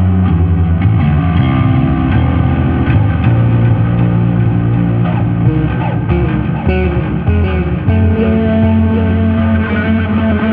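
Fender Japan Boxer Jazz Bass Special electric bass played fingerstyle: a continuous line of sustained notes and chords with occasional slides, each held a second or two before moving on.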